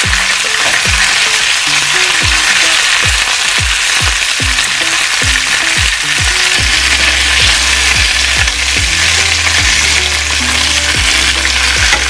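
Chicken thighs sizzling steadily as they fry in oil in a stainless steel skillet. Background music with a steady thumping beat plays along, and a deep held bass note comes in about seven seconds in.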